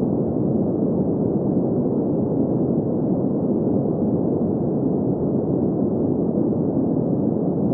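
Green noise: a steady, unchanging noise with its weight in the low middle and nothing high, made for sleep.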